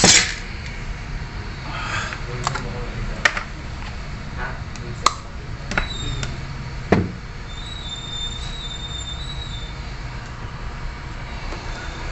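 Hot air rework station blowing steadily while a MOSFET is desoldered from a graphics card, with several sharp clicks and taps of tweezers and tools on the board.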